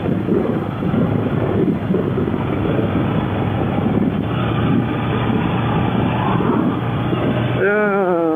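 Motorcycle running at road speed, heard over heavy wind buffeting on the helmet microphone. Near the end the wind eases and the engine note comes through, falling in pitch as the bike slows.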